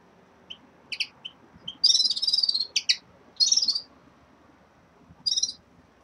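Caged finches chirping and singing: a few short chirps, then rapid trilled song phrases about two seconds in and again around three and a half seconds in, with a short trill near the end.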